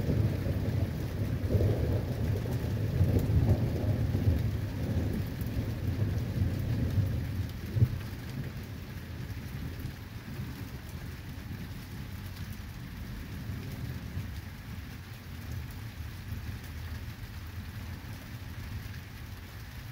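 Thunder rumbling low and long, dying away about eight seconds in, with a single sharp tap near its end. Steady rain falls throughout.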